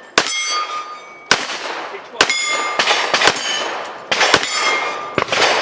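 Kimber 1911 pistol firing a rapid string of shots at steel plates, about eight in five seconds, each shot followed by the ringing clang of the steel targets being hit.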